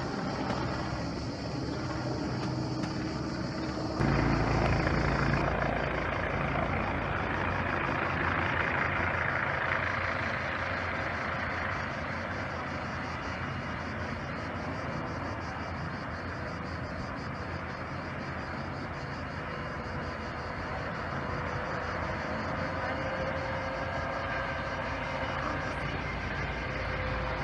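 Distant firefighting helicopter's rotor and engine running steadily as it flies, then hovers over the sea to fill its Bambi bucket. About four seconds in the sound changes abruptly to a louder, rougher wash with a low rumble.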